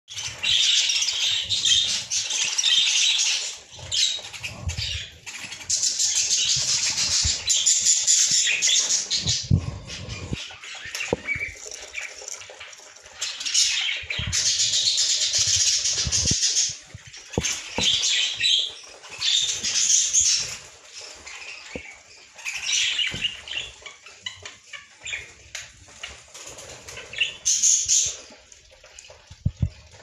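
Budgerigar nestlings giving harsh, hiss-like begging calls in repeated bursts lasting from a second to several seconds, with scattered knocks and rustles from the nest box and its wood-shaving bedding.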